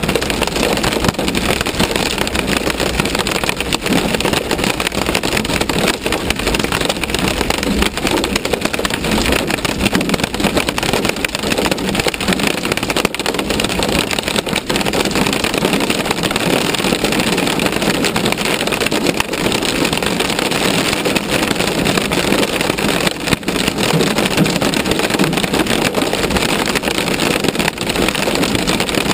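Hail pelting a vehicle's roof and windshield, heard from inside the cab as a dense, unbroken clatter, with the vehicle's running noise under it.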